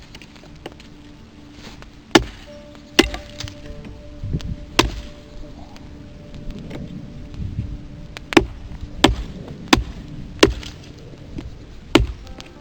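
Wood being chopped with an axe: about eight sharp, single blows at uneven intervals, including a quicker run of four strokes in the second half, over faint background music.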